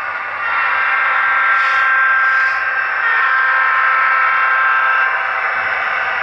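Model diesel locomotive sound from DCC sound decoders, played through small speakers, as a second model locomotive runs close past. It gets louder about half a second in, with held tones that shift in pitch about three seconds in, and falls back about five seconds in.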